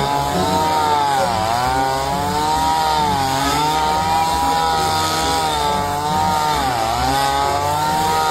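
Petrol brush cutter running at high revs, a steady motor whine whose pitch sags briefly twice, about a second and a half in and again near seven seconds.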